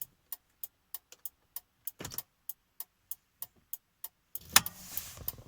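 Replacement flasher relay in an Audi A6 C5's hazard-light button clicking steadily, about three clicks a second, with the hazard lights on: the repaired switch is working. A brief rustle about two seconds in, and a louder knock with rustling handling noise near the end.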